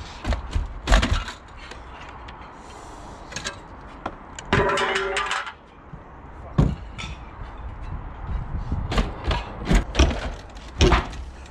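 Sharp knocks and cracks of timber and metal as a skylight window frame is wrenched and pried out of a stripped roof, with a longer scraping sound about halfway through.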